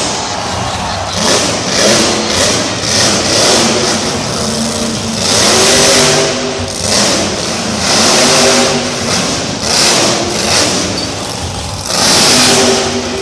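Grave Digger monster truck's supercharged V8 engine revving hard over and over, its pitch climbing and dropping in swells every second or two as the truck drives and turns.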